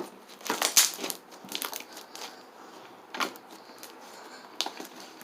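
Hand-worked slime squishing and crackling, with a quick run of sharp pops about a second in and single pops later. The slime is drying out.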